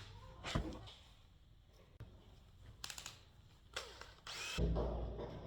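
A few light clicks and knocks, then a power drill starts running steadily near the end.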